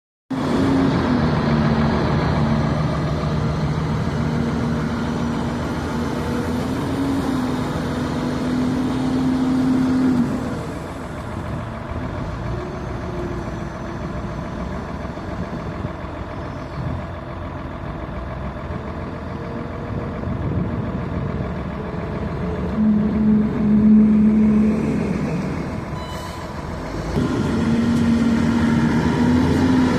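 Heavy construction machine's diesel engine running and working, its pitch and loudness rising and falling with the load. Quieter through the middle, revving up strongly again near the end.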